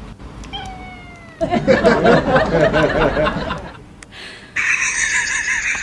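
Domestic cat meowing: a short falling meow, then a long wavering yowl lasting about two seconds. A brighter, hissier sound comes in near the end.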